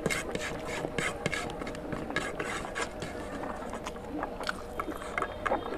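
Eating sounds: wet chewing and lip smacking, with fingers squishing and mixing rice and oily curry on a plate, in many short irregular clicks and crackles.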